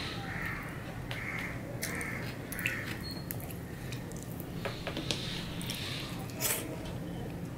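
Close-miked mouth sounds of a man chewing a mouthful of fried rice taken by hand, with wet smacks and sharp clicks. Crows caw several times in the background during the first three seconds.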